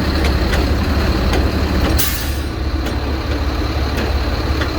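Truck engine idling steadily, with a short sharp hiss of air about two seconds in and a few faint clicks.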